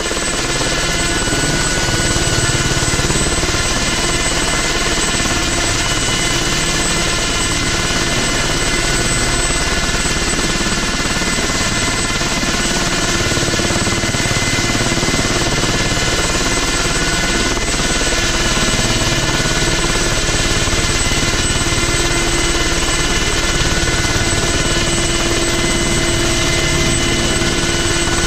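Ultrasport 496 light helicopter hovering just above the ground, its engine and main rotor running steadily at hover power.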